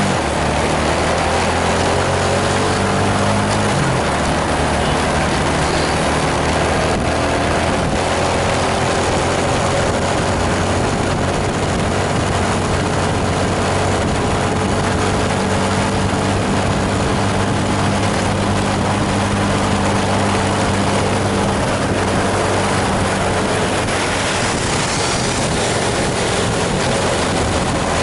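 Large bus diesel engine running steadily under load, its note changing about four seconds in, over a constant hiss of rain and wet road.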